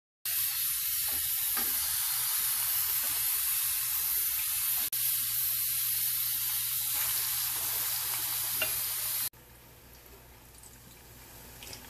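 Batter-coated ripe plantain pieces deep-frying in hot oil over medium heat: a loud, steady sizzle that cuts off abruptly near the end.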